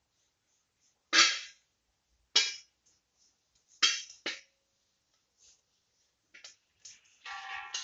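A spoon knocking sharply against an earthenware clay pot four times, each knock ringing briefly, as ghee is knocked off it into the pot; a few lighter clicks follow near the end.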